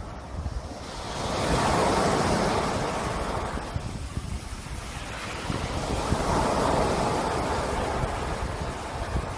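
Sea waves breaking and washing in, two surges of surf a few seconds apart, each swelling and then fading, over a steady low rumble of wind on the microphone.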